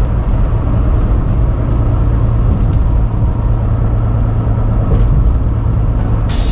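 Steady low rumble of a semi truck's engine and road noise heard inside the cab while cruising on the highway. Near the end there is a brief loud burst of noise.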